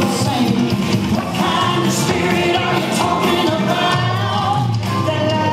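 Country song playing, a singer's voice over a steady beat.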